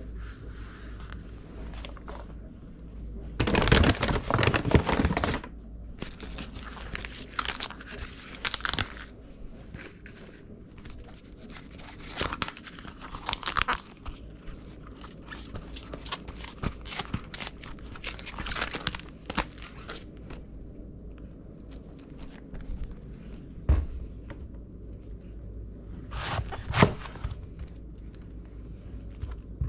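Red cabbage being handled by hand: crisp leaves torn and broken off with crunching, tearing noises in several bursts, the longest and loudest about four seconds in. A few sharp knocks on the wooden cutting board come near the end.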